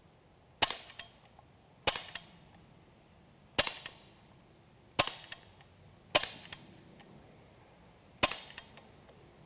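HellBoy .177 CO2 BB air rifle firing Dust Devil BBs semi-automatically: six sharp pops at uneven intervals of about one to two seconds, with another just at the end.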